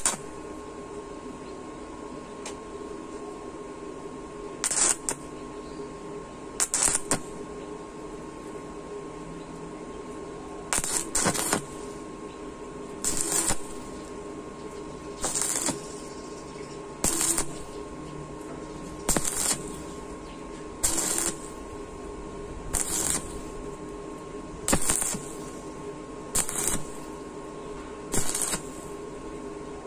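Stick (arc) welding 1.2 mm galvanized steel box tube with a welding rod: the arc crackles in short bursts of about half a second, roughly every two seconds, over a dozen times. The arc is struck and broken repeatedly so as not to burn through the thin wall.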